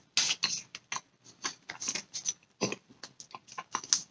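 A person chewing a mouthful of cheesecake close to a clip-on microphone, with irregular quick lip smacks and mouth clicks.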